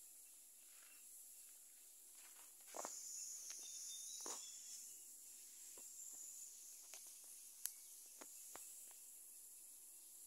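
Near silence in a garden: faint steady high-pitched insect chirring, with a few soft scrapes and clicks, the loudest about three and four seconds in and a sharp click near eight seconds.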